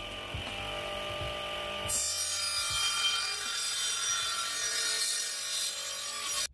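Small benchtop table saw running, its blade spinning with a steady whine. About two seconds in the sound turns louder and hissier, then holds steady until it cuts off suddenly at the end.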